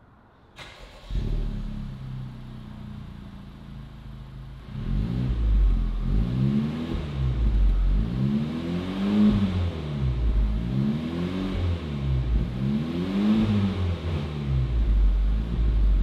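Honda Civic Type R FL5's K20C turbocharged four-cylinder through its stock exhaust with the exhaust valve held open, parked. It fires up about a second in and settles to a steady idle. From about five seconds in it is free-revved about five times, the pitch climbing and falling each time.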